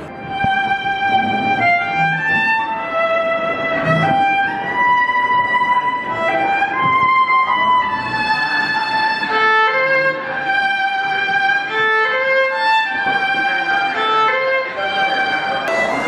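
Solo violin playing a melody of long held notes, starting about half a second in.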